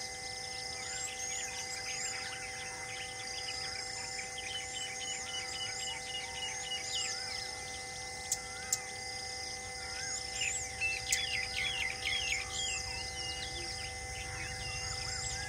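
Many wild birds chirping and whistling over a steady insect drone, with two sharp clicks about eight seconds in and a burst of louder chirps soon after.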